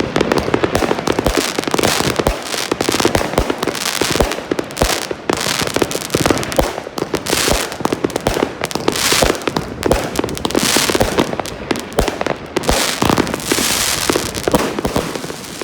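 A 61-shot consumer firework cake (20–30 mm calibre) firing rapid shots in quick succession, with bursts breaking into crackle: the dense crackling finale of the cake.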